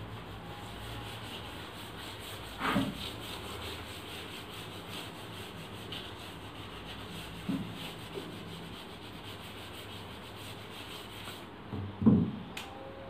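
Cloth wiping marker off a whiteboard: a steady rubbing of quick back-and-forth strokes that stops shortly before the end. A few short low thumps break in, the loudest near the end.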